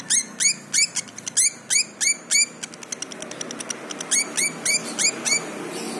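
Lovebird singing in a rapid series of sharp, high chirps, about three a second, with a stretch of quicker, fainter ticks in the middle before the chirps resume. This is the broken, jumpy 'konslet' song style prized by lovebird keepers.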